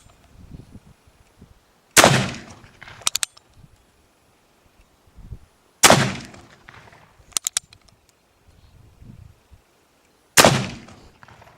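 Three shots from a Ruger .45 calibre black-powder percussion revolver, about four seconds apart, each ringing out for about a second. A few sharp metallic clicks follow each shot as the hammer is cocked for the next one.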